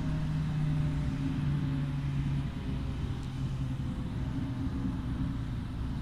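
Federal Signal 2001-SRNB outdoor warning siren winding down: a low drone slowly falling in pitch.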